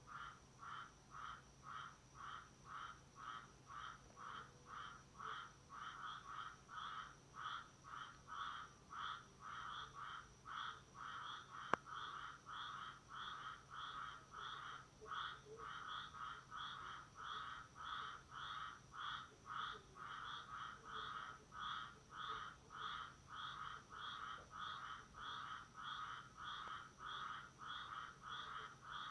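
Tree frogs calling, faint, in a steady, even rhythm of about two short calls a second that runs on without a break. One sharp click sounds near the middle.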